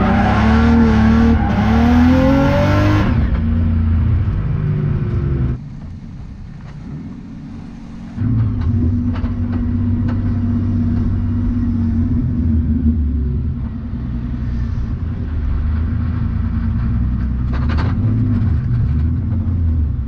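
Supercharged BMW E36 325i straight-six revving hard with tyre noise for about three seconds while drifting, then dropping to a lower, steady engine drone, with a brief quieter dip partway through.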